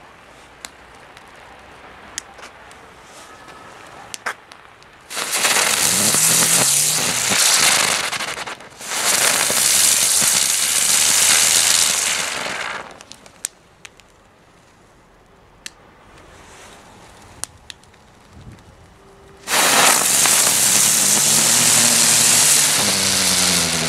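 Ground spinner fireworks spraying sparks on paving: three long spells of loud hissing, a few seconds each, with scattered small pops and crackles in the quieter gaps between them.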